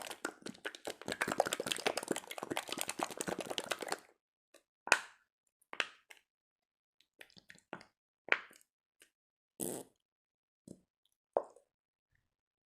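Jiggly slime being squeezed and played with by hand. About four seconds of dense crackling clicks, then a string of separate wet pops and squelches as trapped air bursts out.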